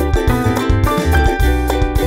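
Upbeat background music with a steady beat, bass and bright tuned percussion.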